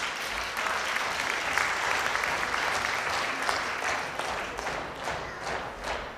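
Theatre audience applauding, a dense sustained clapping that thins out near the end into separate, fairly evenly spaced claps.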